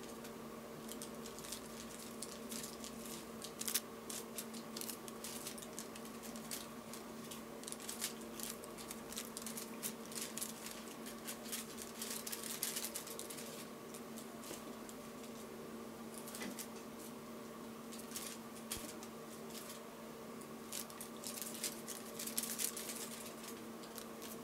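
Soft, irregular rustling and small crackling clicks from a kitten shifting and pawing on a cloth blanket, busiest in the middle and near the end, over a steady low hum.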